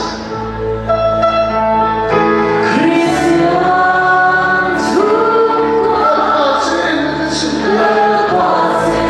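A congregation sings a gospel worship song together, many voices at once, over steady held instrumental tones.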